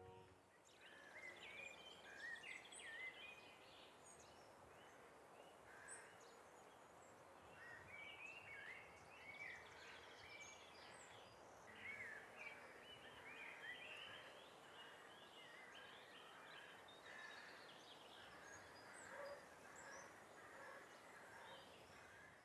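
Faint outdoor ambience of birdsong over a steady background hiss: many short chirps and quick rising and falling notes, scattered throughout.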